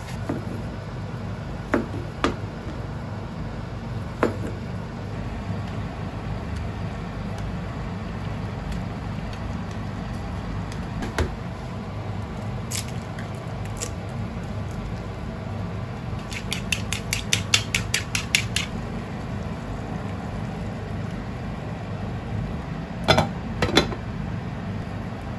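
Kitchen prep sounds over a steady low hum: a few light taps and knocks, an egg cracked over a wooden bowl, then a quick clatter of about five strokes a second for a couple of seconds as the egg is beaten with chopsticks. Near the end comes the loudest sound, two clanks of a glass lid set down on a frying pan.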